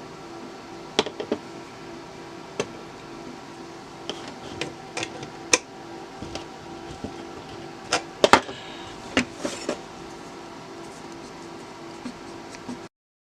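Scattered light clicks and taps of small metal parts and a screwdriver being handled while rewiring a rotary telephone, over a steady low hum, with a quick cluster of clicks about eight seconds in. The sound cuts off suddenly near the end.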